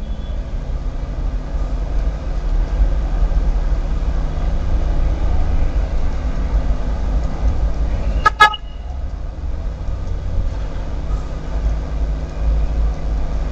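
Steady low background rumble, with one short horn toot about eight seconds in.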